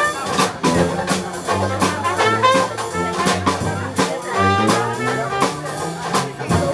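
Dixieland jazz band playing live, trumpet and trombone lines weaving over a steady beat of drum strokes about twice a second.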